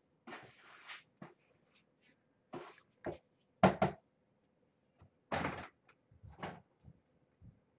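A series of short knocks and rustling clatters of things being handled, the loudest a little over three and a half seconds in.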